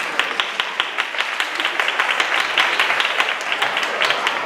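Audience applauding, many hands clapping at once with some single claps standing out.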